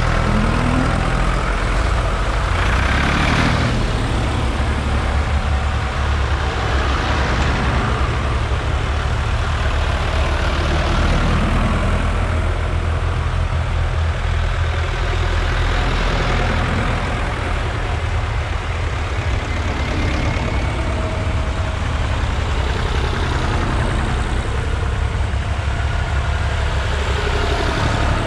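A line of vintage tractors driving past one after another, their engines running steadily with a low, even thrum. The sound swells louder each time another tractor passes close, several times over.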